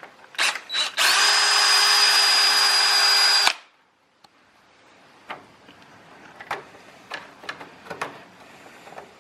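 Power drill running: two short trigger blips, then a steady run of about two and a half seconds that stops abruptly. After it come a few light clicks and taps of handling small parts.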